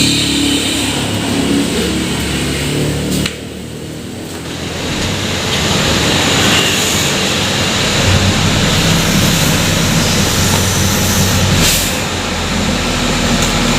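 Bus engine running, with stacked steady engine tones. The sound drops away suddenly about three seconds in, then builds back up over the next few seconds.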